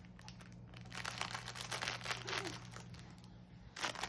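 Potato chips crinkling and crunching as they are handled and eaten: dense crackly clicks that thicken after about a second, with a louder flurry near the end.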